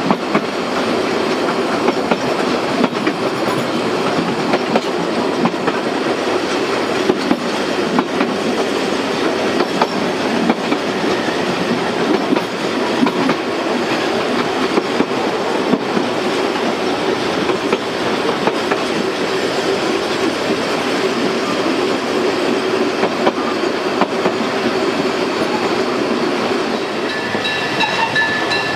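Narrow-gauge passenger coaches running along the track, heard from aboard: a steady rolling rumble with irregular clicks and knocks from the rails. Near the end, as the train takes a curve, a high steady squeal of several tones sets in.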